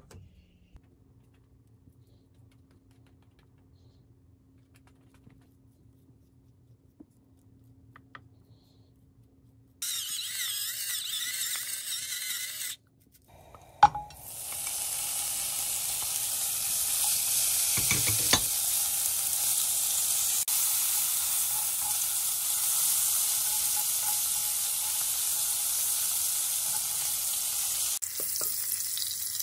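Thinly sliced beef dropped into a hot nonstick wok with a sharp knock, then frying with a loud, steady sizzle. Before that it is quiet apart from a short hiss about ten seconds in.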